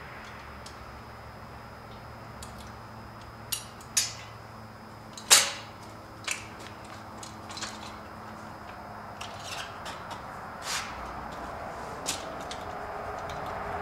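Steel folding tire step clanking and clicking as it is adjusted, folded and set against a truck tire. There are a few sharp metal knocks, the loudest about five seconds in, then lighter clicks.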